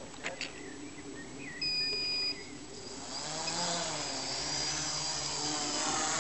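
A single steady electronic beep lasting under a second, then a MikroKopter quadcopter's electric motors and propellers spin up for take-off: a loud whine that swells about three seconds in, its pitch wavering up and down as it lifts off.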